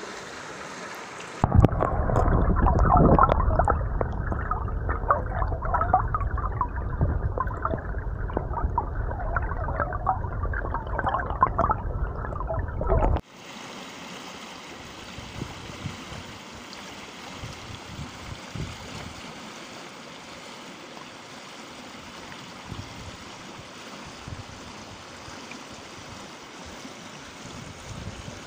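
Shallow river current rushing and gurgling over stones. For the first twelve seconds or so it is louder and muffled, with a grainy splashing texture, and it stops abruptly about thirteen seconds in, giving way to a quieter, steady rush of flowing water.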